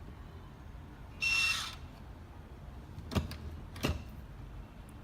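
A short electronic beep with a hiss about a second in, then two sharp clicks about two-thirds of a second apart.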